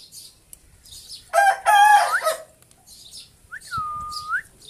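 Pet rose-ringed parakeet giving two loud, harsh squawks in quick succession about a second in, with faint high chirps around them. Near the end a whistled note swoops down, holds and swoops back up.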